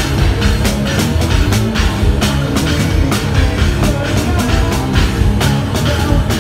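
Progressive metal band playing live at full volume: dense, driving drums with frequent cymbal and kick hits under a heavy electric bass line and guitar.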